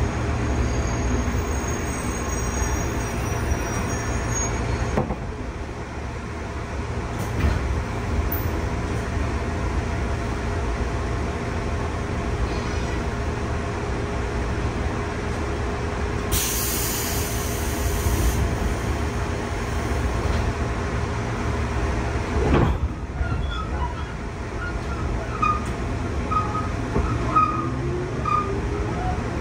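Steady low rumble inside a JR 211 series electric commuter car halted at a station, with a short air hiss a little past halfway and a thump a few seconds later. Near the end the train pulls away, its traction motors starting a rising whine.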